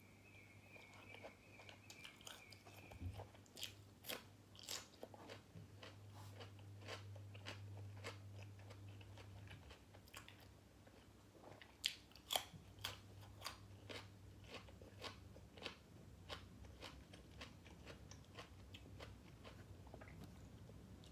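Close-miked chewing and crunching of grilled pork balls and crisp raw vegetables: a long run of irregular sharp crunches, several a second, with the loudest bites about halfway through.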